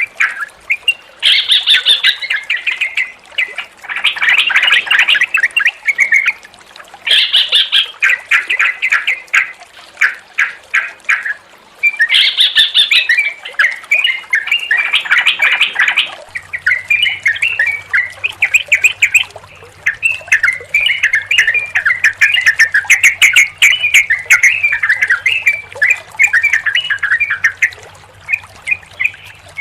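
Yellow-vented bulbuls (trucukan) singing: bursts of rapid, bubbly chattering phrases, several in a row. About halfway through the recording changes to near-continuous chattering with a faint low hum beneath it.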